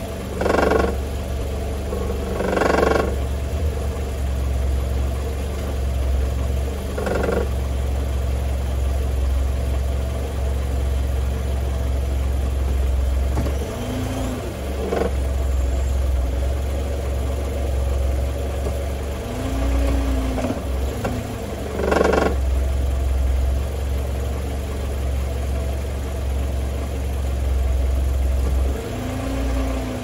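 Mercedes-Benz W202 C180's four-cylinder petrol engine idling steadily, with about five short metallic rattles spread through it. The rattles come from a loose heat shield on the catalytic converter, which rattles when the car is in gear.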